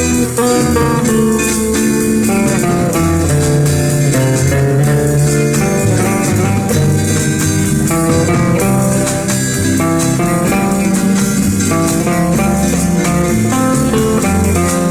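Background music: an instrumental passage led by guitar over bass and drums, in an old-time rhythm-and-blues style.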